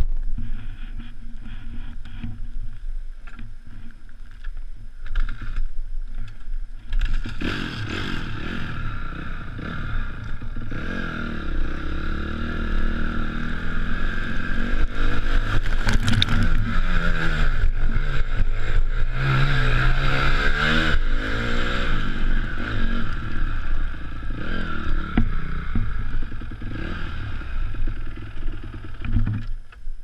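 Honda CRF250X dirt bike's single-cylinder four-stroke engine running while the bike rides through a river. From about seven seconds in, loud water splashing and spray over the bike joins the engine, which revs up and down, and the noise drops away near the end.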